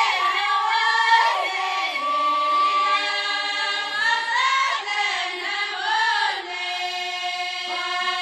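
A group of girls singing an Amazigh ahwach chant together, their voices holding long notes and gliding between them, with no drums.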